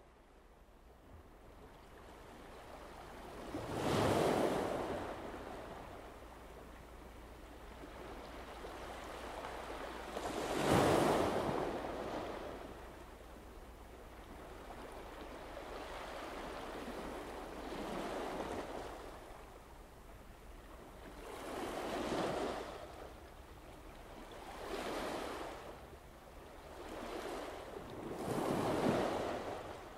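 Sea waves washing ashore, a rushing wash that swells and dies away in about seven surges a few seconds apart.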